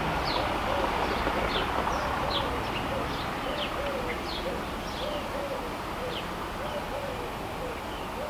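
Birds singing: a steady run of short low humped notes, about two a second, with quick high chirps scattered over it. The low rumble of the receding Class 37 diesel locomotive dies away within the first second.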